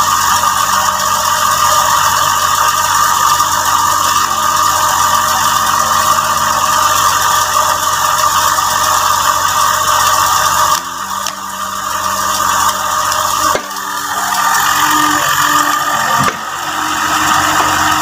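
Yanmar mini excavator's diesel engine running steadily. Its sound drops briefly three times in the second half while the machine works.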